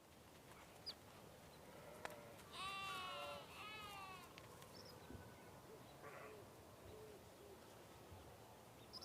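Sheep bleating: one wavering bleat a little under three seconds in, broken in two, then a few fainter short calls, with the odd small bird chirp.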